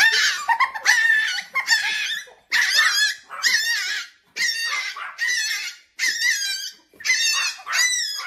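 A small white fluffy puppy yapping over and over, about eleven short high-pitched, wavering barks in a row.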